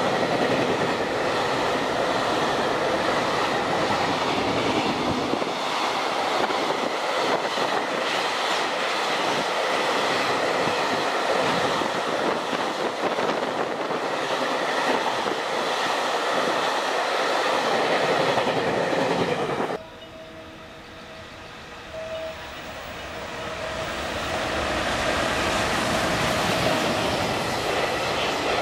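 Container freight train's wagons passing at speed close by, a steady loud rush of wheel and rail noise. About two-thirds of the way through it drops off abruptly to a much quieter sound with a faint steady tone, then builds back up as container wagons pass again.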